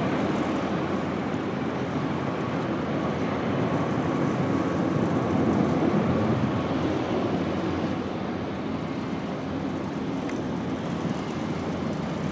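Jet airliner engines rumbling steadily. The sound swells to its loudest about six seconds in and then eases back.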